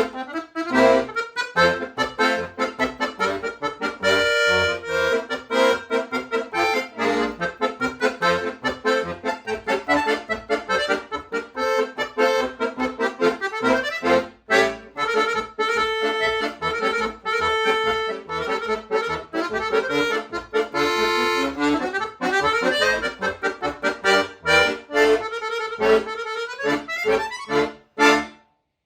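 Solo accordion playing a fast, lively passage of quick short notes, with a brief break about halfway through, and finishing on a final chord that stops sharply near the end.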